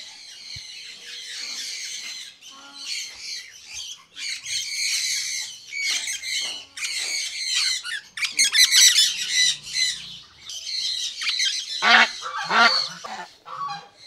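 Domestic white geese squawking and honking in a near-continuous stream of harsh calls, the alarm of a mother goose being caught by hand. Louder, deeper honks come about twelve seconds in.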